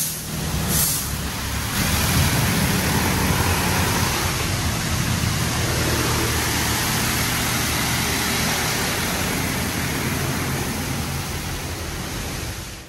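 Coleman Hanna Water Wizard touchless car wash gantry spraying high-pressure water onto the car: a steady hiss of spray drumming on the body over a low machine hum, with a couple of short hissing bursts at the start.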